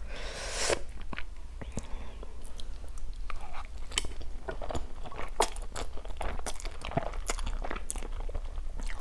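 Close-miked eating of spicy instant noodles: a short airy sucking sound at the start, then wet mouth clicks of slurping and chewing.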